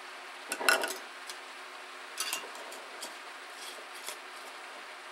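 Kitchen things being handled and set down on a wooden table: a measuring cup and a glass sugar jar. A clatter about half a second in is the loudest moment, followed by a few lighter clicks and taps, over a steady low hum.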